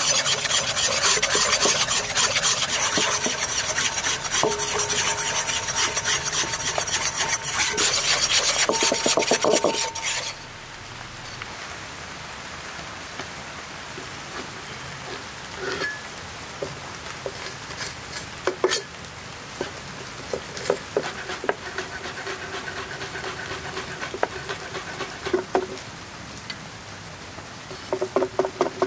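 Egg yolk and oil being whisked into a thick mayonnaise in a bowl: a loud, dense, steady scraping that stops suddenly about ten seconds in. Then a chef's knife cutting a red chili on a wooden board: scattered soft taps, and a quick run of chopping near the end.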